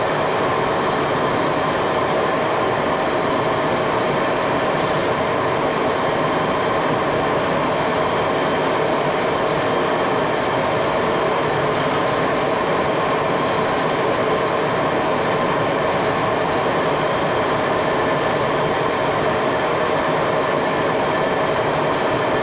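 A shop machine running steadily, an even mechanical drone with a steady whine and no change in speed.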